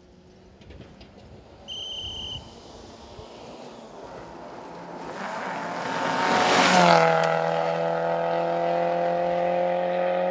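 Peugeot 106 Rallye rally car with a 1.6-litre engine approaching at speed and passing close by. The engine pitch drops as it goes past, a little over halfway through, and it then holds high revs as it pulls away. A short shrill beep sounds about two seconds in.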